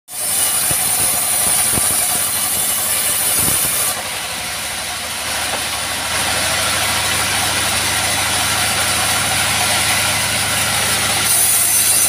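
Band sawmill running steadily, its engine and moving blade making a continuous mechanical noise with a high hiss. The hiss drops away about four seconds in and returns near the end. A few knocks of wood being handled come in the first few seconds.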